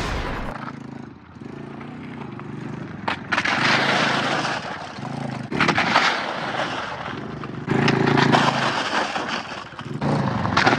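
Small four-wheeler engine running, with three long stretches of rough, rushing noise over it.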